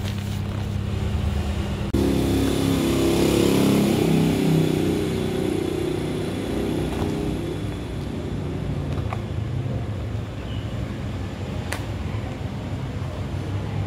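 Vehicle engine running over a steady low hum. It gets louder about two seconds in and eases off after a few seconds. A couple of light clicks come later.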